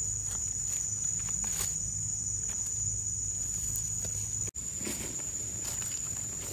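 Footsteps and faint crackles in forest leaf litter, over a steady high-pitched insect drone. The sound cuts out for an instant about four and a half seconds in.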